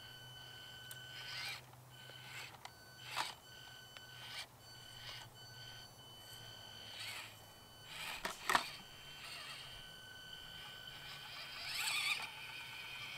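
Axial SCX24 micro crawler's small brushed electric motor and speed control giving a faint, high, steady whine that starts and stops in spurts as the throttle is worked. A few sharp knocks of the truck on rock, the loudest about eight and a half seconds in.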